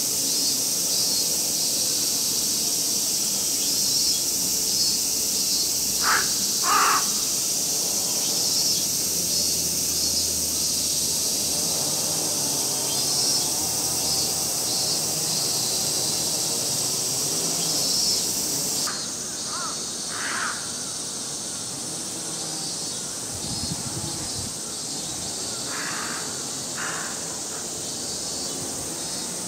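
Crows cawing three times, each a pair of short caws, over a steady high-pitched chorus of cicadas in the trees.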